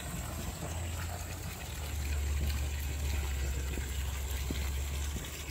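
Water running from a garden hose into a partly filled swimming pool, a steady faint pouring, under a low rumble.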